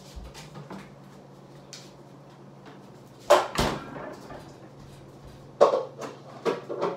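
Sharp knocks and clatters of things being handled and set down close to the microphone: two loud ones about three and a half seconds in, then a cluster in the last second and a half. A steady low hum runs underneath.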